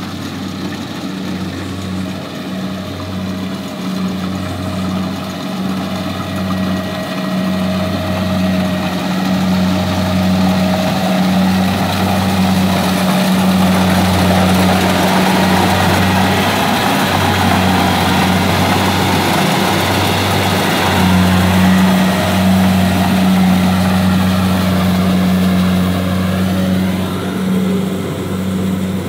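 Kubota DC70 rice combine harvester running under load as it cuts and threshes: a steady diesel engine drone with a mechanical rushing over it. It grows louder as the machine comes close and passes, then eases slightly near the end.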